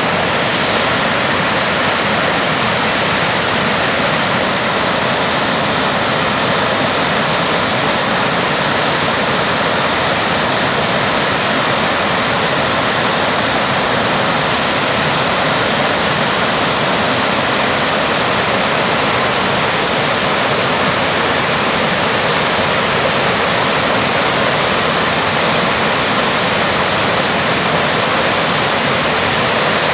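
Waterfall cascading over stepped rock ledges into a pool: a loud, steady rush of falling water.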